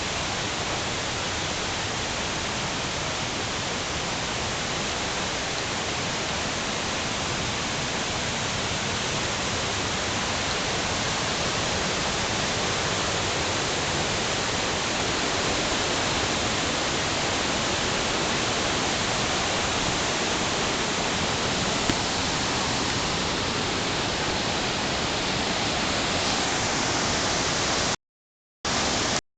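Waterfall: a steady, even rush of falling water. The sound drops out to silence for a moment near the end.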